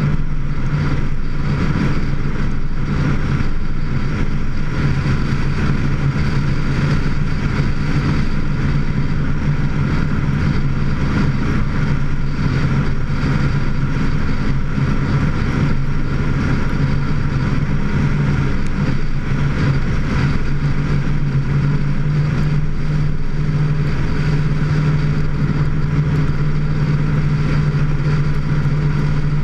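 Vehicle engine droning steadily at cruising speed, with a constant low hum, mixed with wind and road noise as picked up by a camera mounted on the hood.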